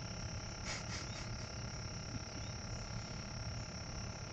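A steady high-pitched insect chorus, crickets calling at dusk, over a low steady hum. A short knock or rustle comes just under a second in.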